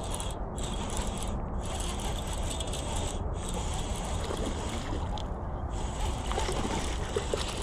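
Steady wind rushing over the microphone, with light splashing from a hooked bass at the surface as it is reeled toward the bank.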